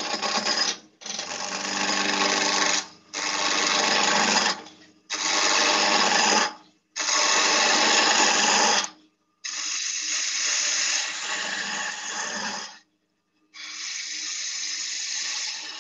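A gouge cutting a spinning wooden spindle on a lathe: a run of about seven hissing cutting passes, each one to three seconds long, broken by short near-silent gaps as the tool is lifted and brought back for the next pass. The cuts throw off long ribbons of shaving as the baseball-bat blank is brought down to shape.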